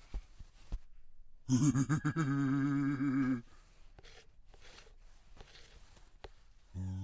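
A cartoon character's voice laughing for about two seconds in a long, wavering chuckle. Then a quiet stretch with a few faint clicks, and a voice starts again near the end.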